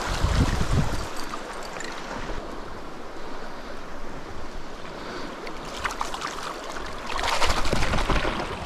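Shallow river water rushing over a gravel bed, with wind buffeting the microphone during the first second. Near the end, louder splashing as a hand lowers the fish back into the shallows.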